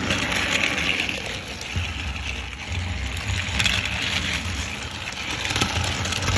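Battery-powered toy Thomas engine running on plastic track, pulling cargo flatcars: a small electric motor whirring with rattling wheels. It starts suddenly at the beginning and runs steadily.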